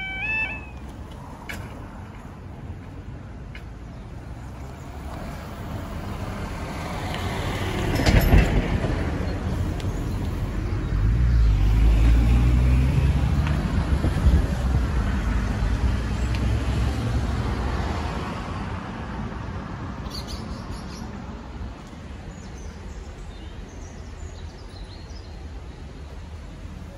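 Diesel train crossing the level crossing. Its rumble builds to a loud rattle about eight seconds in, then a diesel engine is heard running under power, and the sound fades away after about eighteen seconds.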